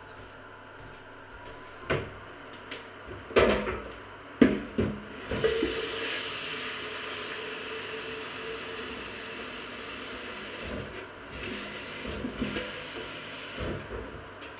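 A few clattering knocks of kitchenware, then a kitchen tap running steadily, filling a plastic jug, with two brief breaks in the flow near the end.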